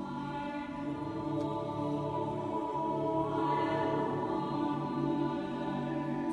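Mixed choir singing slow, sustained chords. A little past three seconds in, higher voices come in and the sound grows slightly louder.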